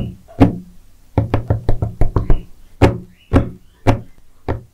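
Knuckles knocking on a hard tabletop: one knock, then a quick run of about eight, then four slower knocks about half a second apart.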